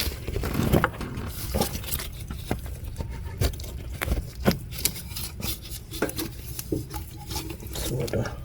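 Irregular clicks, light knocks and scraping of hand tools and metal parts at the engine's thermostat housing.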